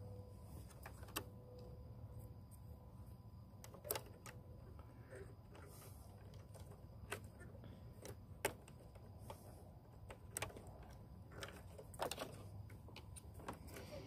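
Small, sharp plastic clicks and taps at uneven intervals as hands handle a fuse-tap wire and its crimp connector and work a blade fuse in a car's under-hood fuse box, over a low steady hum.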